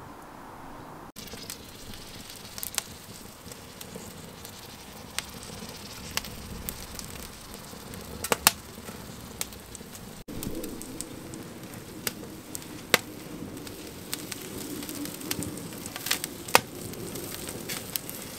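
Charcoal smoker loaded with wood chips crackling, with sharp, irregular pops over a steady hiss. A bird calls in the background in the second half.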